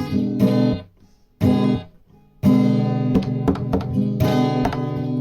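Music: strummed acoustic guitar chords in a steady rhythm, cutting out briefly twice in the first couple of seconds before carrying on.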